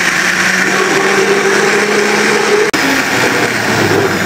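Electric countertop blender running at full speed, grinding grapes with water into juice: a steady loud whir with a motor hum, broken for an instant about two and a half seconds in.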